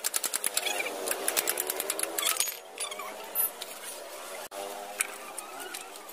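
Fast metallic clicking of a wrench working the rear axle nut of a Bajaj Avenger 150 motorcycle for the first couple of seconds, then a few single clicks and knocks.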